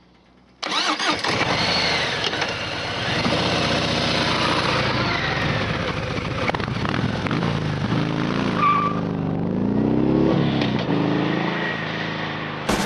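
2018 Harley-Davidson Sport Glide's Milwaukee-Eight 107 V-twin on its stock exhaust, starting up suddenly about half a second in and then running, with the revs rising and falling a few times in the second half.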